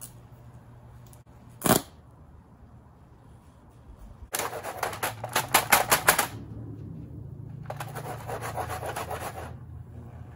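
Salt water shorting across a Zenith VCR's mains power-supply board: a single sharp snap of arcing, then two bouts of rapid electrical crackling, the first loud and about two seconds long, the second quieter, over a steady low hum.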